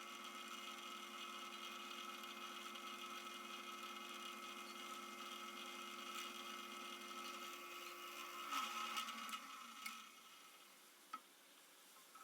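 A small electric motor running steadily, then shutting off and winding down about nine seconds in, followed by a couple of light clicks.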